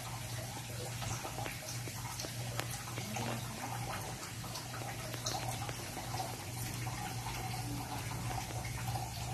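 Steady low hum and hiss of room noise, with a few faint ticks of a ballpoint pen tracing on a rubber sheet.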